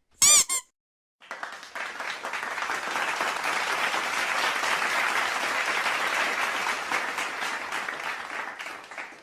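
Crowd applause sound effect: many hands clapping, swelling in about a second in, holding steady and fading out near the end. It is preceded by a brief wavering, whistle-like tone right at the start.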